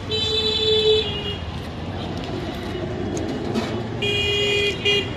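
Vehicle horn sounding twice, each blast held about a second and the second about four seconds after the first, over a steady rumble of street traffic.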